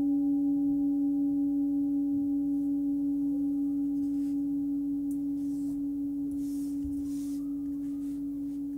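Hand-forged Tibetan singing bowl, the 16 cm C# bowl tuned to about 281 Hz, ringing on after being played: one steady low tone with fainter higher overtones, slowly dying away with a slight waver.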